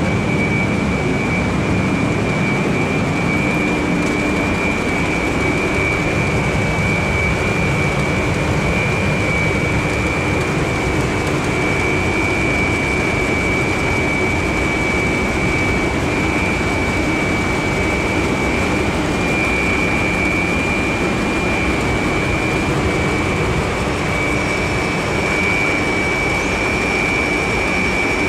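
Pellet plant machinery running: a steady, loud roar with a constant high whine over it and a fainter low hum beneath.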